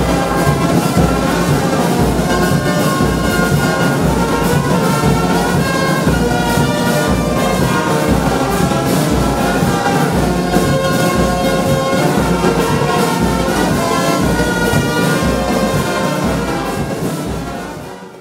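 Music with a steady beat, fading out near the end.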